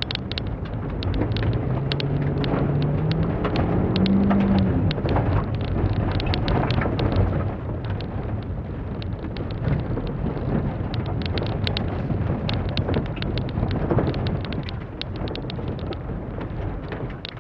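Holden Barina's engine heard from inside the cabin, revving up in pitch over the first few seconds as the car accelerates, then working on and off the throttle through turns. Loose stones and gravel clatter against the underside and wheel arches throughout, over a steady rumble of tyres on a loose surface.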